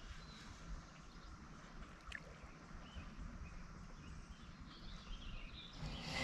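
Quiet outdoor ambience: a steady low rumble under a faint hiss, with a single light click about two seconds in. The hiss grows louder near the end.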